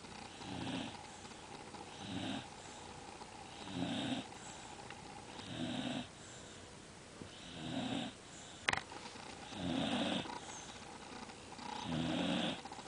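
A sleeping dog snoring in a steady rhythm, about one snore every two seconds. A single sharp click about two-thirds of the way through.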